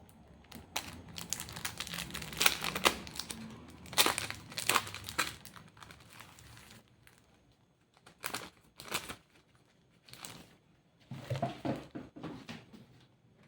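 Packaging being crinkled and torn open by hand in irregular bursts, busiest in the first few seconds, then a few shorter rustles with pauses between.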